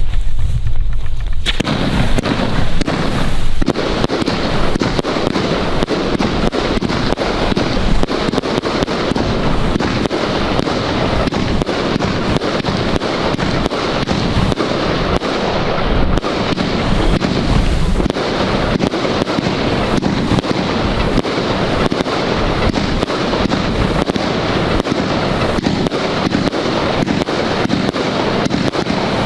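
A Luypaers Arabian Leopard 100-shot compound firework cake firing. About a second and a half in it starts shooting, and from then on its launches and bursts follow one another in a rapid, unbroken string.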